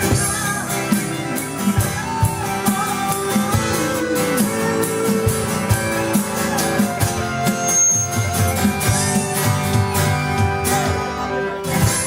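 Live rock band playing an instrumental passage without vocals: a lead guitar melody with sliding, bent notes over steady drum hits.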